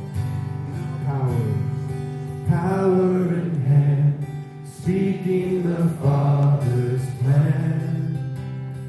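Christian worship song: acoustic guitar with a sung melody line.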